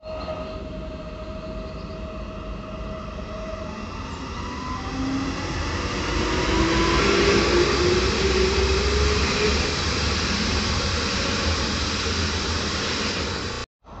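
SKM electric multiple unit running past on the tracks: a rumble of wheels on rail that swells to its loudest about halfway through as the train goes by, with a whine from the electric traction drive gliding upward in pitch. The sound cuts off suddenly just before the end.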